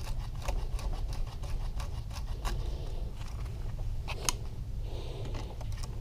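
Light clicks and scrapes of hand tools and small metal engine parts being handled at a workbench, with one sharper click about four seconds in, over a steady low hum.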